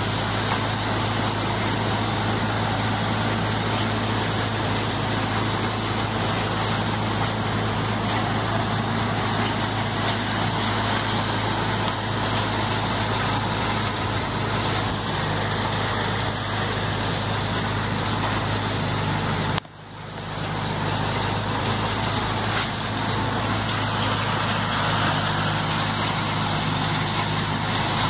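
Tractor-driven bean threshing machine running, a steady engine and machine drone that cuts out for a moment about twenty seconds in and then comes back.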